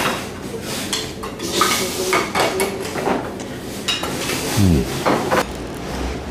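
Steel chopsticks clinking and tapping against plates and a stainless-steel rice bowl while eating: a string of short, light clicks.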